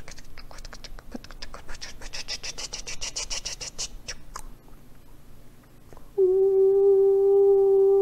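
Rapid soft clicking, many clicks a second, for roughly the first four seconds. About six seconds in, a woman's voice starts humming one steady, held note.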